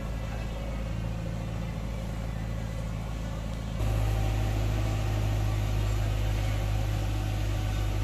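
JCB backhoe loader's diesel engine running with a steady low hum, stepping up louder a little under four seconds in as the machine drives along the road bed.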